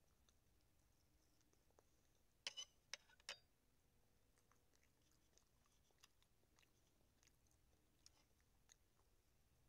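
Quiet eating sounds, near silence overall, with a quick cluster of four or five sharp clicks about two and a half seconds in and a few faint ticks after.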